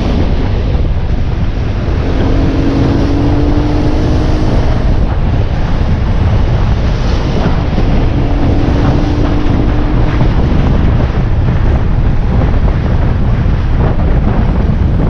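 Heavy wind buffeting on the microphone of a moving motorcycle, with the motorcycle engine's note rising faintly underneath during the first few seconds and again about eight seconds in.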